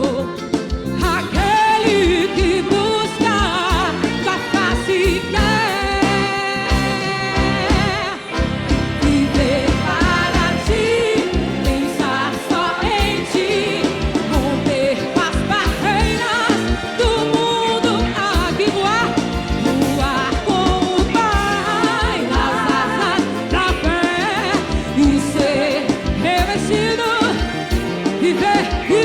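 Live forró band playing a gospel song: a steady drum and bass groove under accordion, horns and keyboard melody lines.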